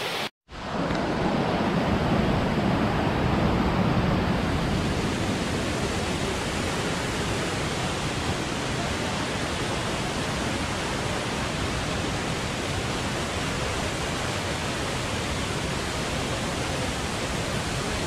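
Steady rush of flowing stream water, an even unbroken hiss.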